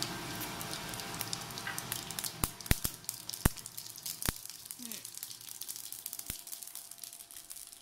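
Nigella, cumin and mustard seeds sizzling and crackling in hot oil in a non-stick frying pan while a spatula stirs them: the whole spices being tempered. A few louder sharp clicks stand out between about two and a half and four and a half seconds in.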